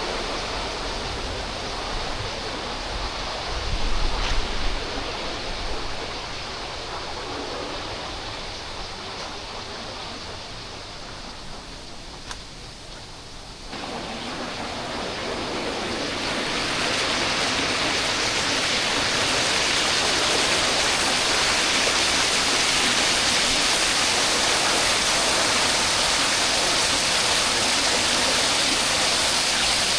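Waterfall rushing, a steady hiss of falling and flowing water. About 14 seconds in it suddenly gets louder and brighter, then settles into a full, even rush.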